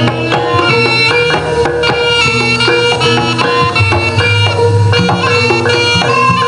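Live jaranan gamelan music: hand drums (kendang) keeping a quick, steady rhythm under struck bronze metallophones playing repeating pitched notes.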